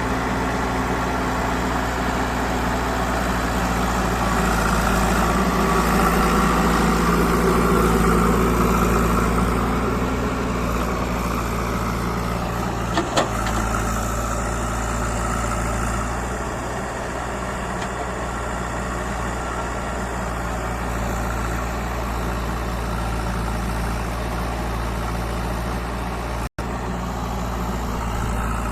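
JCB 3DX backhoe loader's diesel engine running steadily while the machine works, growing louder a few seconds in and then settling back. A brief double knock sounds about halfway through, and the sound cuts out for an instant near the end.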